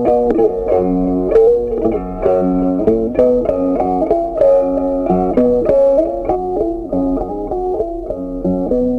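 Background instrumental music: a plucked guitar tune.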